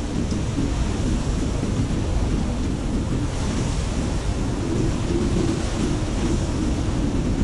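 Snowstorm wind blowing steadily and heavily, with a deep low rumble under a constant hiss.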